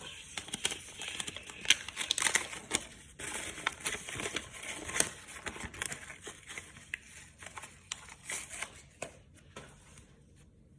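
Packaging crinkling and rustling in the hands as sports cards are unwrapped. There are many small irregular crackles, which die away near the end.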